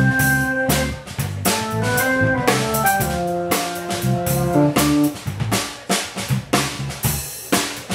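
Live instrumental trio of drum kit, electric bass and electric organ playing together. Frequent snare, bass-drum and cymbal strikes sit over held organ chords and bass notes.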